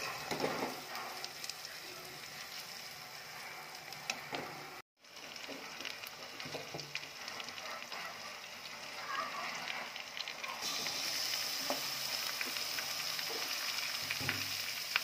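Onions and spices sizzling in hot oil in a steel pot, with a spoon scraping and stirring them now and then. The sound cuts out for a moment near five seconds in, and the sizzle grows louder and hissier a little after ten seconds.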